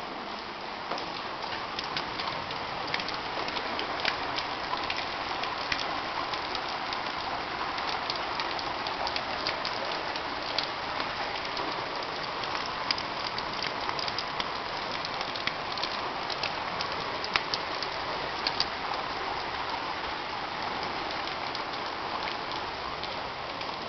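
Steady rush of water, with many small sharp splashes or drops pattering through it.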